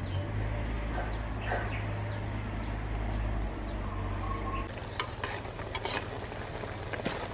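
Fish soup boiling in an aluminium pot, bubbling with irregular crackles and pops that come through more clearly after a change about two-thirds of the way in. Before that change, a steady low rumble lies under it, with faint repeated chirps.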